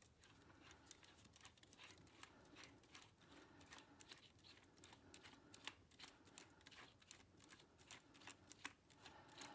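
Faint, irregular small clicks and rubbing of hard plastic as a Blue Snowball USB microphone is turned by hand onto the threaded mount of its tripod stand.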